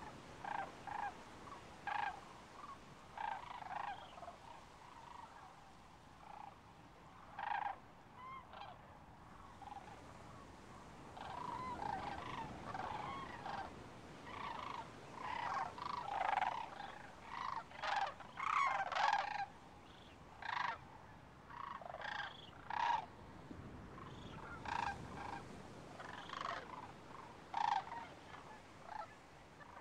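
A flock of geese honking: many short, irregular calls, busiest in the middle, overlapping one another.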